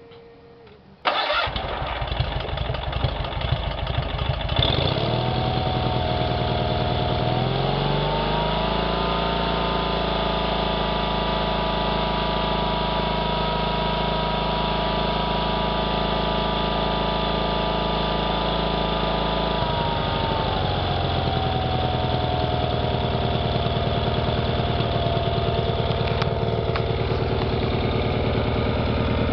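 Cub Cadet 782 garden tractor's Kohler Twin 17 opposed-twin engine being started: it cranks for about four seconds from a second in, catches, is throttled up to a steady higher speed for about ten seconds, then brought back down to a steady idle.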